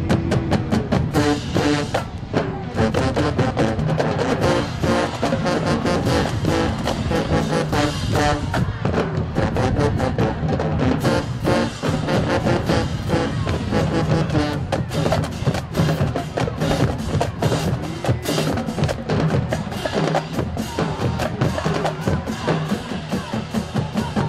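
Marching band playing: brass and sousaphones over a drumline with bass drums, keeping a steady, driving beat.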